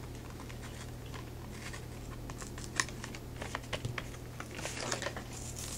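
Small cardboard toy boxes being handled and opened by hand: light clicks and rustles that grow more frequent from about two seconds in, over a low steady hum.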